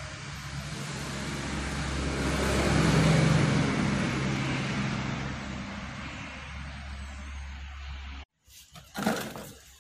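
Small two-stroke brush cutter engine idling steadily after assembly, at an even pitch. It gets louder about three seconds in and then fades, cuts off abruptly about eight seconds in, and is followed by a short burst of noise.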